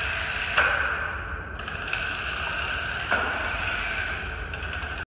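Jada 1:16 toy RC drift cars' small electric motors whirring as they drive on a hard floor, with two sharp knocks, about half a second in and about three seconds in.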